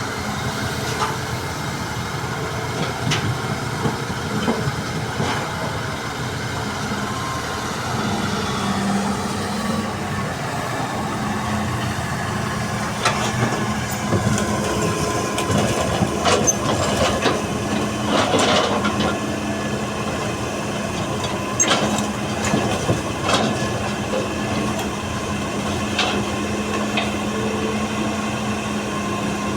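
Heavy-machinery diesel engine running steadily, with scattered sharp knocks and clanks mostly in the second half.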